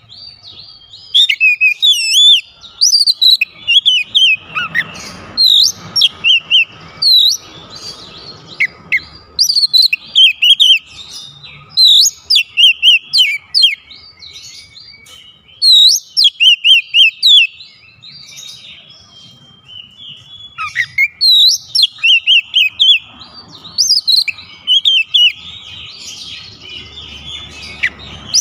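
Oriental magpie-robin singing: loud phrases of sharp, bending whistles and quick repeated chirps, broken by short pauses.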